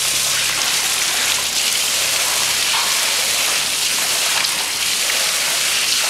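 Thick, slightly viscous copper sulphate foot-bath solution pouring in a steady stream from a tipped 200-litre plastic drum and splashing into a shallow foot-bath tray.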